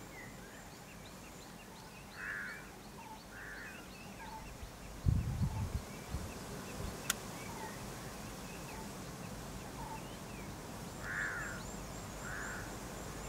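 Wild birds calling over quiet outdoor ambience: a two-note call sounds twice, near the start and again near the end, over steady faint high chirping. A brief low rumble comes about five seconds in, with a single sharp click just after.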